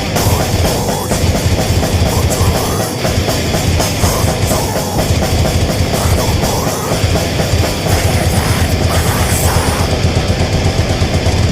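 Extreme heavy metal music: fast, dense distorted guitars over rapid, pounding drums.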